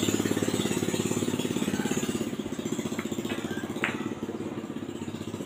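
A motorbike engine idling with a steady fast pulse, easing slightly after about two seconds. Over it, carom billiard balls click against each other twice, about three and four seconds in.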